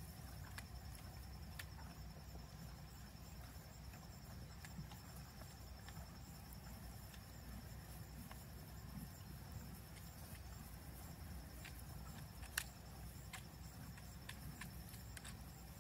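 Faint scraping and small clicks of a hoof pick cleaning out a horse's hoof, with one sharp knock about three-quarters of the way in, over a low steady rumble and a thin, steady high tone.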